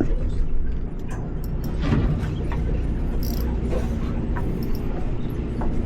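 Steady low drone of the fishing boat's engine running, with scattered light clicks and knocks on deck.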